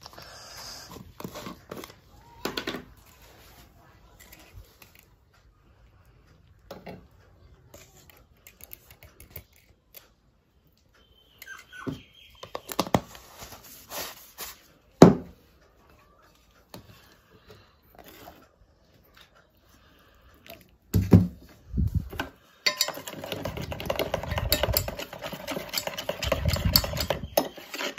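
Scattered taps and clicks of a powder tub and a stainless steel bowl being handled, with two louder knocks a little after the twenty-second mark. Then a metal spoon stirring milk powder in the steel bowl, scraping steadily for about five seconds near the end.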